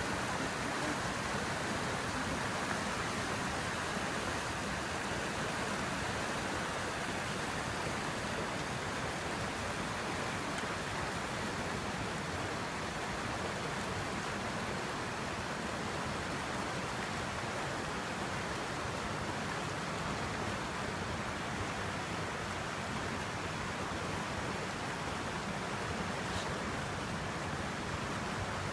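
Virgin River flowing over rocks: a steady rushing of running water.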